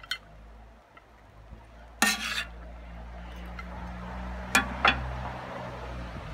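Metal spatula scraping across a steel plancha and knocking against a ceramic baking dish as grilled quails are lifted off the plate: a short click at the start, a loud scrape about two seconds in, and two sharp clinks close together near the five-second mark.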